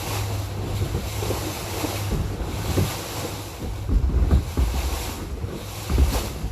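Wind buffeting the microphone over the wash of sea water, a steady rumbling noise with stronger gusts about four and six seconds in.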